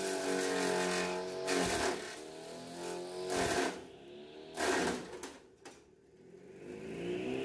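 Mini chaff cutter running, its motor whine dropping in pitch as green fodder is fed in, with three loud bursts of chopping about a second and a half, three and a half and nearly five seconds in. The motor slows almost to a stop under the load, then speeds back up with a rising whine near the end.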